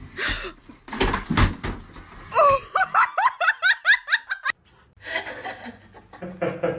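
A burst of noise, then a person laughing in a quick run of about eight short 'ha' sounds lasting about two seconds.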